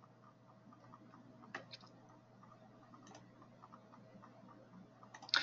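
A few faint, scattered computer mouse clicks over quiet room tone, with a short, louder hiss of noise at the very end.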